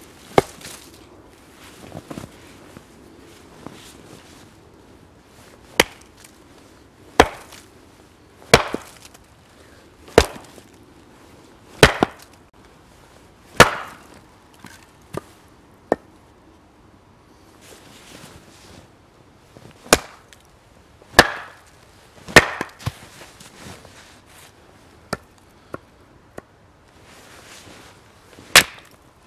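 Small hatchet splitting a log on a wooden chopping block: about a dozen sharp chops and knocks at uneven intervals, with the blade lodged in the log as it is struck down onto the block.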